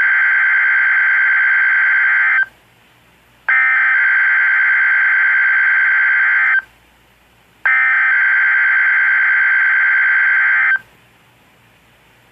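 Emergency Alert System SAME header on NOAA Weather Radio: three bursts of screeching digital data tones, each about three seconds long with about a second's pause between. They encode the start of a Required Weekly Test alert.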